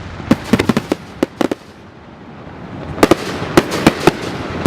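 Aerial fireworks bursting in a rapid string of sharp bangs and crackles. The bangs stop briefly about two seconds in while a rumble builds, then another quick volley of bangs follows.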